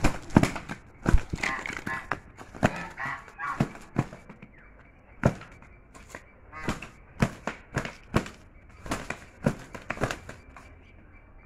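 Two Chinese geese fighting: their wings beat in many irregular, sharp slaps, with honking calls in the first few seconds.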